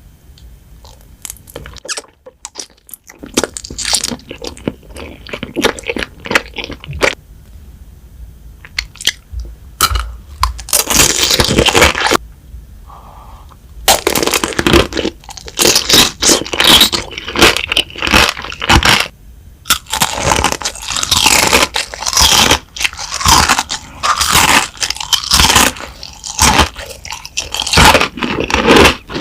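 Crunchy food being bitten and chewed close to the microphone, in irregular runs of loud crunching broken by short pauses.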